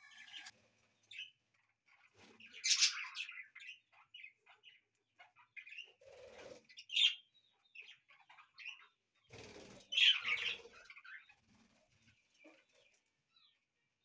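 A flock of budgerigars chirping in scattered short calls, loudest about three seconds in and near ten seconds. Wing flapping comes about six seconds in and again just before ten seconds.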